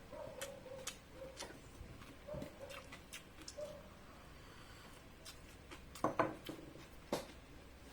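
Crunchy chicharon (deep-fried pork rinds) being bitten and chewed close to the microphone: irregular sharp crackles and crunches, the loudest cluster about six seconds in.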